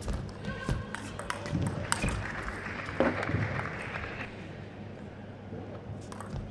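A table tennis rally ends: a few sharp clicks of the plastic ball off bat and table, then scattered single clicks and knocks as the ball bounces away.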